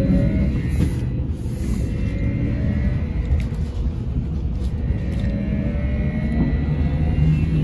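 Sinara-6254 trolleybus under way: a steady low road rumble with the electric traction drive's whine rising in pitch near the start and again about five seconds in, as the trolleybus picks up speed.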